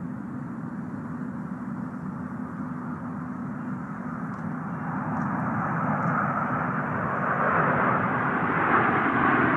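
Jet engine noise of a low-flying Airbus A380 airliner and a formation of small jets: a steady rushing noise with a low hum, growing louder over the second half as the aircraft come closer.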